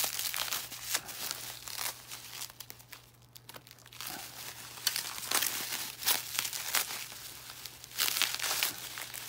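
Bubble wrap crinkling and rustling in the hands as a graded card slab is unwrapped, a fast run of crackles with a short lull about three seconds in.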